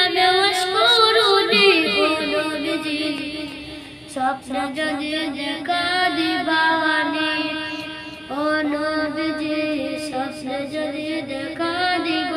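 A boy singing a Bengali gojol, an Islamic devotional song, in long melismatic phrases, with short breaks about four and eight seconds in.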